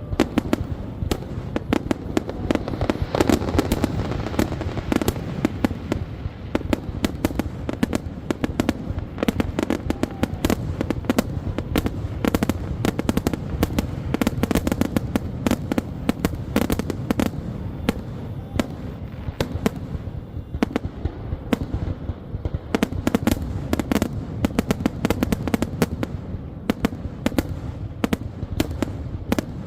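Fireworks display in a dense, continuous barrage: rapid crackling pops and sharp bangs over a steady low rumble of bursting shells.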